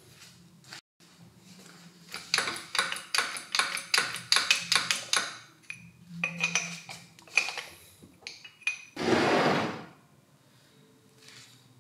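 Light, quick metal-on-metal tapping with a ringing ping, about four or five taps a second for some three seconds, then a few scattered clinks, as commutator bars are fitted to a drill armature. About nine seconds in, a rushing hiss lasts about a second.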